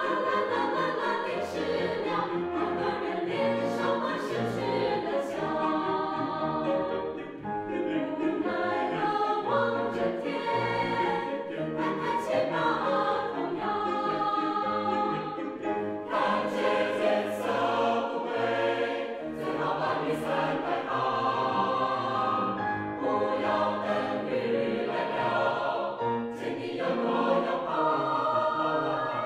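Mixed choir of women's and men's voices singing in several parts at once, a choral arrangement of a medley of Taiwanese campus folk songs.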